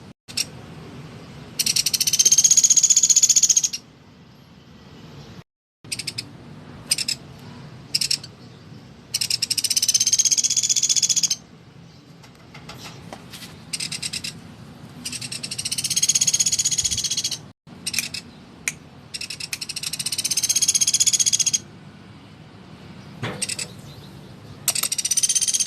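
Woodpecker calling: about five long, high, rapidly pulsed trilling calls of about two seconds each, with a few short sharp calls in between.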